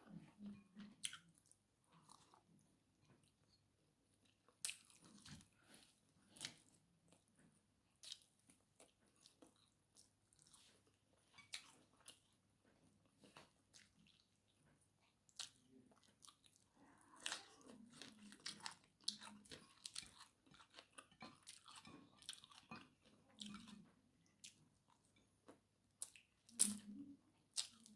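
Faint close-up eating sounds: a person chewing fried fish and rice with lip smacks, soft crunches and many short sharp clicks from the mouth.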